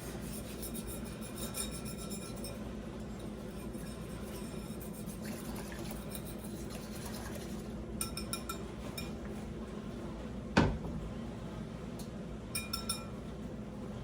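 Metal whisk clinking lightly against a bowl now and then, with one sharp knock about ten and a half seconds in.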